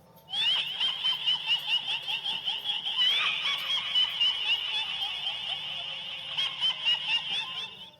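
A dense chorus of many frogs calling rapidly over one another, high-pitched and continuous. It starts abruptly just after the beginning and is cut off sharply near the end.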